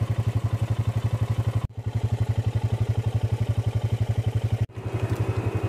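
A farm vehicle's engine running steadily with a fast, even pulse. It cuts out abruptly twice and resumes.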